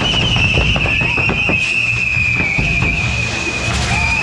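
Fireworks burning on a pyrotechnic figure: a steady high-pitched whistle over rapid crackling pops and a continuous low rumble.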